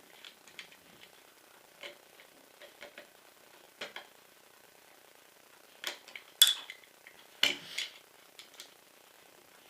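Screwdriver and small metal parts clicking and scraping against an airsoft M4's metal lower receiver as the magazine release catch screw is worked loose: scattered light clicks, the sharpest about six and a half seconds in.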